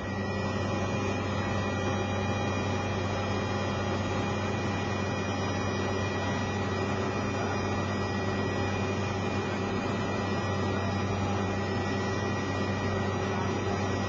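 Helicopter in flight, heard from inside the cabin: a constant low drone with steady higher whining tones on top.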